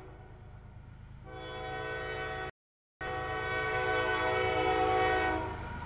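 CSX freight locomotive's horn sounding as the train approaches a grade crossing, a held multi-note chord from about a second and a half in until near the end, over the low rumble of the diesel engine. The sound drops out for about half a second in the middle.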